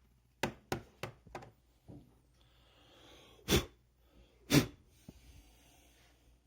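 Hand-handling of a chainsaw's air filter parts: four quick sharp clicks, then two louder knocks about a second apart.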